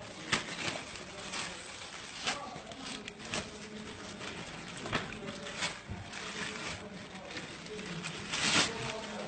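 Plastic-wrapped packets rustling and crinkling as a hand digs through a crate of them, with scattered sharp crackles, the loudest near the end. Faint voices murmur underneath.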